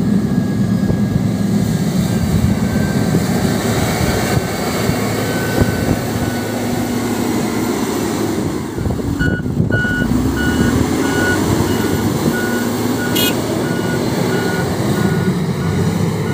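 Motor grader's diesel engine running steadily under load. From about halfway a reversing alarm beeps at a steady pitch, about twice a second.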